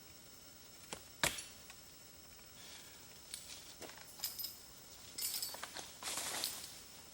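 Faint handling noise: scattered sharp clicks and light clinks, the loudest about a second in, with a rustle from about five to six and a half seconds in.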